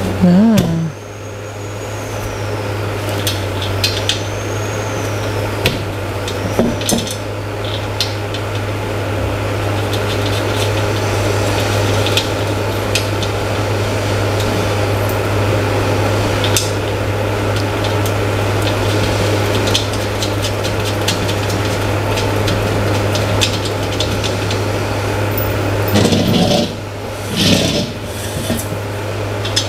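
Metal chair frame and fabric-covered backrest being handled and fitted together during assembly: scattered taps, rattles and rubs of the metal parts over a steady low hum.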